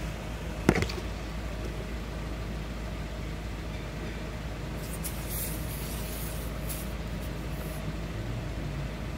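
Portable tyre inflator's hose chuck being fitted onto a car tyre valve: a sharp click just under a second in, then short hisses of escaping air about halfway through, over a steady low hum.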